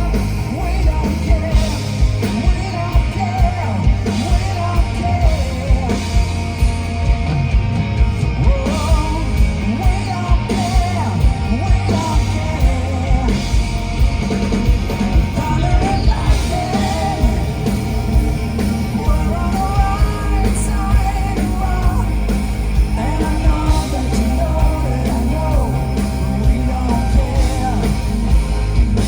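Hard rock band playing live, with a singer's voice over a steady, regular drum beat and full amplified band.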